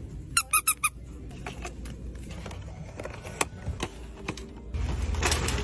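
A plush dog toy's squeaker squeezed four times in quick succession. Scattered clicks and rattles follow as items are handled in a metal shopping cart, and a louder steady noise sets in near the end.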